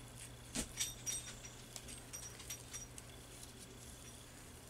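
Faint clicks and light rustling as fingers handle a roll of glitter washi tape and pull tape from it, with a few sharper clicks between half a second and a second in.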